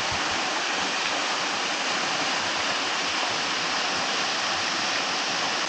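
Small waterfall splashing: a steady, even rush of falling water.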